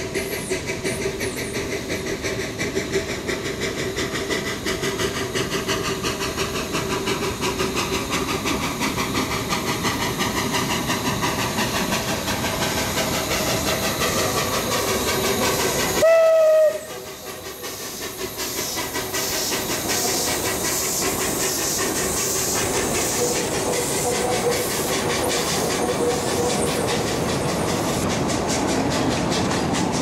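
760 mm narrow-gauge forest-railway steam locomotive working past, its exhaust chuffing in a steady beat with a hiss of steam. It gives one short, loud whistle blast about halfway through, and then its wooden wagons roll by on the rails.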